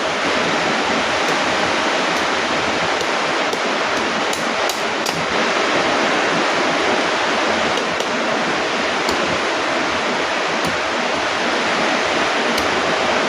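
Steady loud rushing noise with a few faint high ticks scattered through it.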